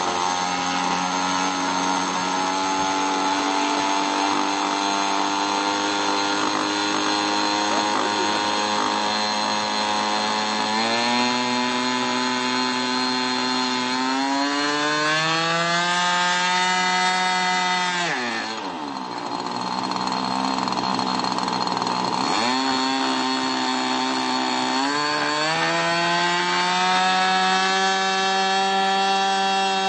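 Model airplane engine running at full volume on the ground: a steady buzz that is throttled up in steps about a third of the way in, drops sharply to a low idle for a few seconds, then revs back up and holds high, as in a ground run-up.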